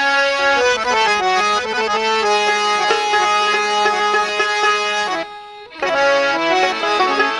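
Harmonium playing a melodic instrumental introduction to a Baul song, the reedy melody moving over a steady low drone. It breaks off briefly about five seconds in, then picks up again.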